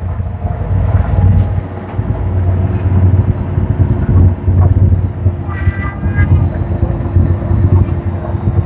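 Ferry's engines running, a steady low rumble with a constant hum above it. A brief pitched sound cuts through about six seconds in.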